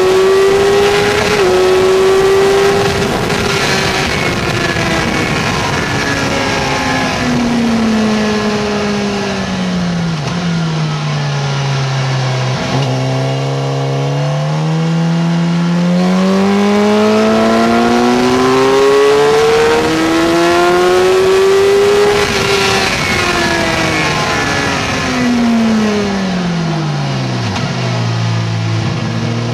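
Suzuki GSX-R 750 inline-four sport-bike engine heard from on board, with wind rush. The note falls for about ten seconds as the bike slows for a corner, climbs steadily for about ten seconds as it accelerates out, then drops sharply and settles at a low steady pitch near the end as it slows again.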